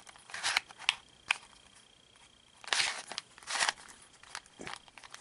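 Cheap generic plastic 3x3 puzzle cube being turned by hand: short scratchy rasps and clicks as its layers are twisted, in several separate bursts.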